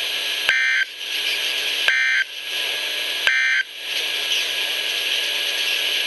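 NOAA Weather Radio alert receiver sounding three short, identical digital data bursts about 1.4 seconds apart. These are the SAME end-of-message code that closes the severe thunderstorm warning broadcast. They play over a steady radio hiss.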